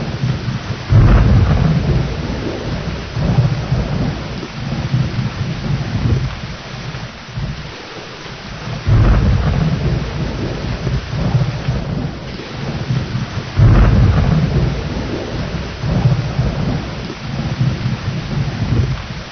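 Steady heavy rain with rolling thunder: loud low rumbles break in suddenly about a second in, again near the middle and about two-thirds through, each fading slowly under the rain.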